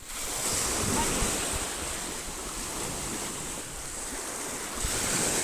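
Sea waves washing onto the shore in a steady roar that swells around one second in and again near the end, with wind buffeting the microphone.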